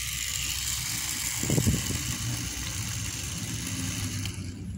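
Small battery-powered electric motor of a homemade miniature tractor running with a steady high whir, cutting off near the end. A brief louder low sound comes about one and a half seconds in.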